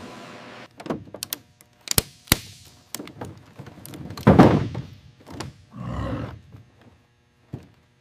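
A string of separate knocks and clunks from hard objects being handled. Two sharp clicks come about two seconds in, the loudest and heaviest thunk about four seconds in, and a rattling knock about six seconds in. It then goes quiet apart from a last click near the end.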